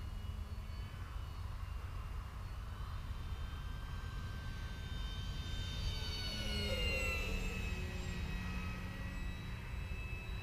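Electric motor and propeller of a Dynam C-188 radio-controlled crop duster model whining as it flies a low pass. The whine grows louder and drops in pitch as it goes by about six to seven seconds in, over a steady low rumble of wind on the microphone.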